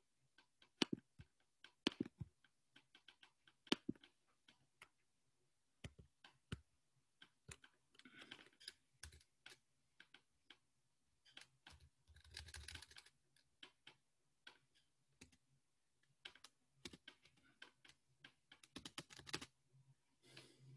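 Faint typing on a computer keyboard: irregular key clicks with pauses, and a couple of brief soft noises midway.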